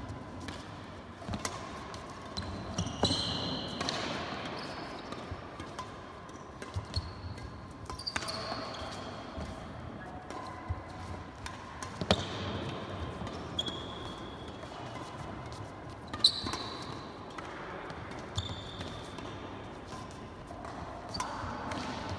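Badminton rally: sharp racket strikes on the shuttlecock every few seconds, the loudest about twelve and sixteen seconds in, with sports shoes squeaking briefly on the court floor between strikes, in a large echoing hall.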